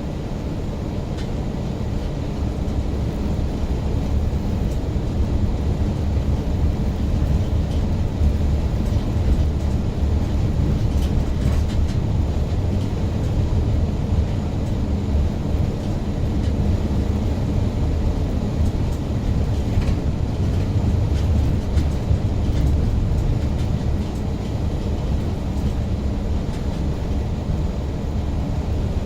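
Car driving on a snowy road, a steady low rumble of engine and tyre noise heard from inside the car.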